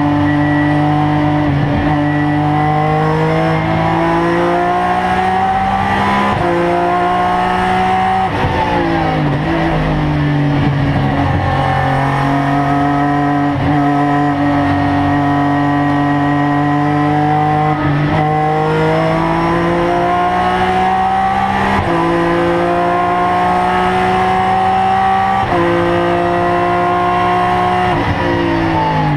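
BMW M3-GTR race car engine heard loud from inside the cockpit at racing speed. Its note climbs slowly in each gear and steps abruptly at each gear change, several times over. It falls away and picks up again about eight to ten seconds in, as for a corner.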